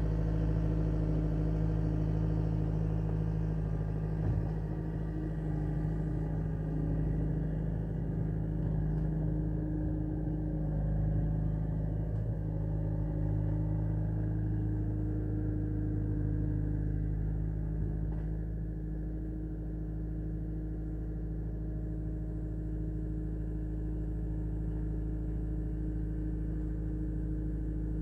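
A steady low engine drone, as of a motor running at a constant idle.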